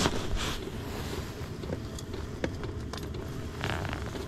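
Muffled rubbing and rustling of jacket fabric over the camera's microphone, with a low rumble and a few light clicks and knocks from handling gear, and a short rustle near the end.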